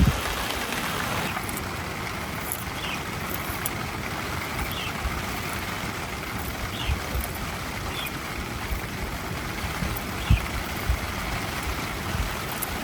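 Steady hiss of heavy rain falling on a tent, with a few soft thumps.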